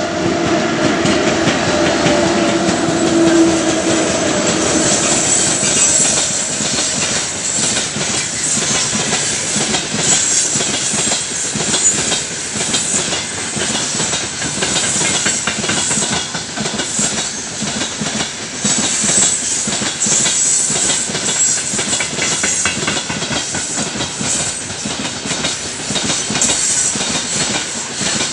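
Heavy freight train of open gondola wagons rolling past behind 2ES5K Ermak electric locomotives: steady rumble and clatter of the wheels on the rails. A steady two-note hum from the passing locomotives fades out in the first few seconds.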